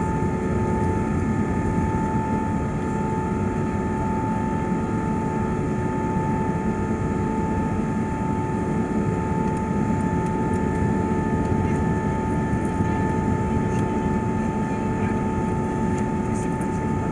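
Airbus A380-800 cabin noise: a steady, low rush of engine and airflow noise with a few constant tones humming through it.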